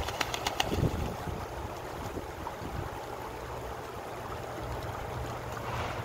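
Ducks splashing while bathing in shallow creek water, a quick run of splashes in the first second, then steady flowing water with wind on the microphone.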